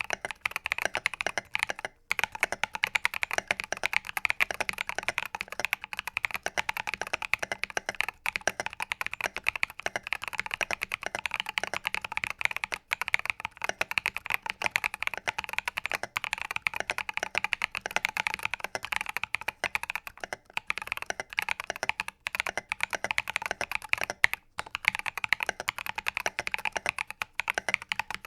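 Steady, fast typing on a custom mechanical keyboard: a C3 Equalz Zer0.9 polycarbonate tenkeyless with PE foam and a brass plate, fitted with lubed Yok Holy Panda tactile switches and SA-profile keycaps. Keystrokes come in a dense, continuous stream with a few brief pauses.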